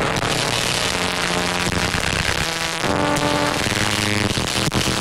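Background music of sustained, layered notes that shift to new pitches every second or so, over a steady hiss.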